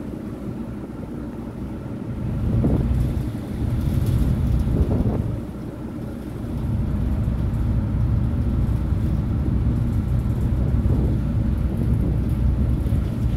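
Wind buffeting the microphone on a ferry's open deck: a loud, uneven low rumble that swells and dips in gusts, over the steady drone of the ship underway.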